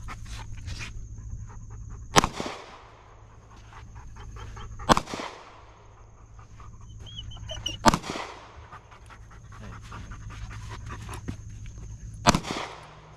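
Four gunshots, irregularly spaced a few seconds apart, each trailing off in a ringing echo, while a dog pants close by.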